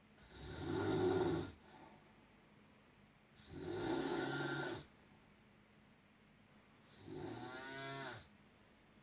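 Someone snoring: three long, loud snores about three seconds apart, the last one with a distinct pitch to it.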